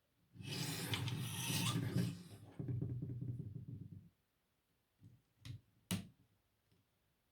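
LEGO plastic pieces being handled on a tabletop: a rubbing, scraping sound lasting about three and a half seconds, followed by two sharp clicks near the end.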